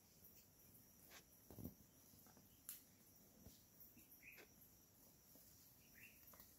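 Near silence: faint forest ambience with a steady high insect drone, a few soft snaps and rustles, and two short bird chirps, about four and six seconds in.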